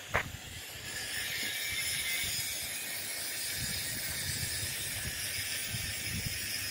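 Steady hissing outdoor background noise with an uneven low rumble underneath, and one short tick at the very start.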